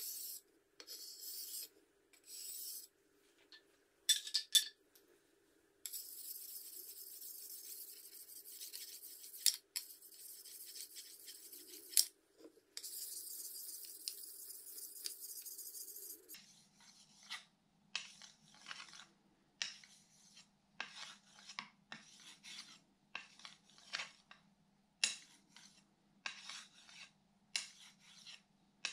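Hand-held sharpening stone rubbed along the steel blade of a drawknife, honing its edge. The strokes are long scraping passes at first; a little over halfway through they become short strokes, just under two a second.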